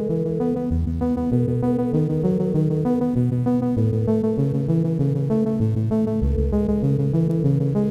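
Electronic synthesizer music: quick keyboard notes changing several times a second over a shifting bass line.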